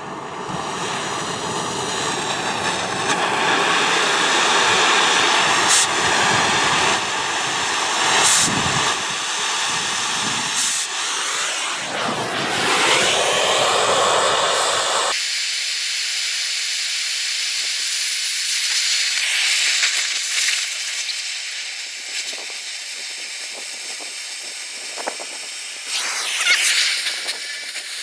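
Oxy-fuel cutting torch hissing as it cuts through the steel of a worn tractor drawbar hitch. About halfway through, the fuller, deeper noise stops suddenly and only a thinner high hiss with faint crackling remains.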